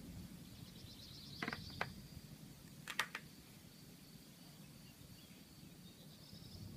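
Quiet rural ambience: a steady high-pitched chirring of insects in the meadows, pulsing for a moment near the start. A few sharp clicks come about one and a half and three seconds in, and a low rumble of distant thunder fades out just after the start.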